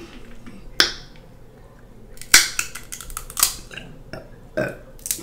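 Snow crab leg shell cracking and snapping as it is broken apart by hand: several sharp cracks, the loudest about halfway through.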